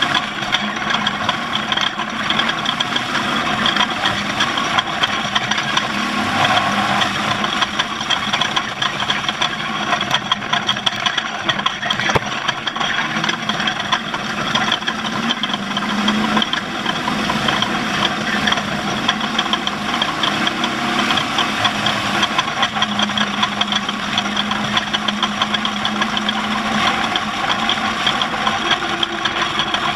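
An off-road race vehicle's engine running steadily, with many small irregular knocks over it.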